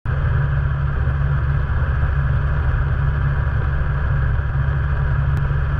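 Snowmobile engine running steadily while riding, a continuous low drone heard from a camera mounted on the machine.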